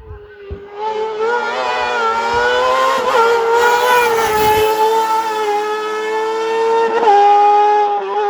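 Rally car engine running hard at high revs, starting about a second in and holding a fairly steady pitch, with a slight dip near the end.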